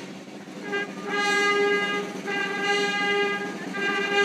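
Brass band playing slow held chords, each note sustained for about a second with short breaks between.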